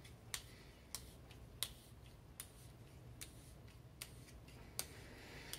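Faint, sharp clicks about every three-quarters of a second as a 9/16-inch brass tube is twisted and pushed through the tight bore of a 3D-printed plastic muzzle piece.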